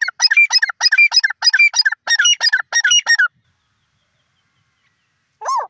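Grey francolin calling: a rapid, even series of notes, about four a second, for some three seconds, then a pause and one more rising-and-falling note near the end.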